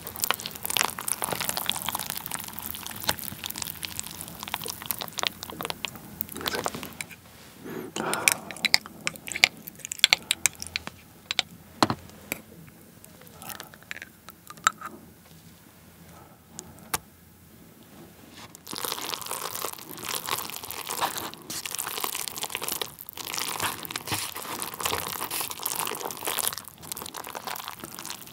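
Wooden chopsticks stirring and mixing sauced instant jjajang noodles in a paper cup, a dense run of small wet clicks and crackles. About twelve seconds in it goes quieter while truffle sauce is spooned from a small glass jar into the cup, and the stirring picks up again about six seconds later.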